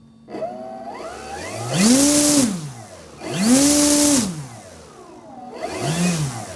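Electric motor and propeller of an RC model airplane throttled up by hand: a whine that climbs to two full-throttle bursts of about a second each with a loud rush of prop wash, dropping back in between, then a shorter, lower burst near the end.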